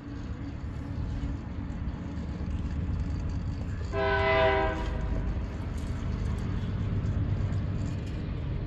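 Electric RC rock crawler's 38-turn 560 brushed motor and transmission running at low speed as it climbs loose bricks with the diffs unlocked, a low steady rumble throughout. About four seconds in, a brief pitched whine rises from it for under a second.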